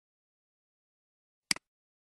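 A single mouse click about one and a half seconds in: a sharp press-and-release tick against dead silence.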